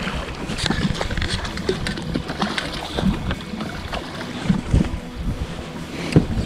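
Choppy water slapping against a fishing boat's hull, with splashes from a hooked walleye thrashing at the surface beside the boat and wind buffeting the microphone. Several sharp knocks or splashes stand out, the strongest near the end.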